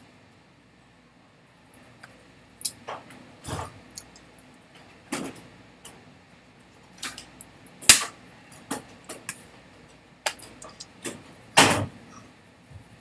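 Irregular slaps and taps of hands striking each other while signing, a dozen or so sharp hits at uneven spacing, the loudest about eight seconds in and a slightly longer one near the end.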